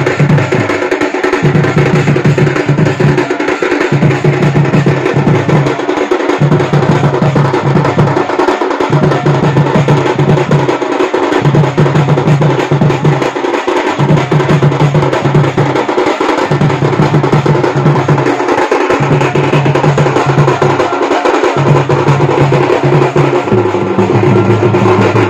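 Drum-led festival music: a loud, steady drum pattern repeating about every two and a half seconds, with held pitched tones over it.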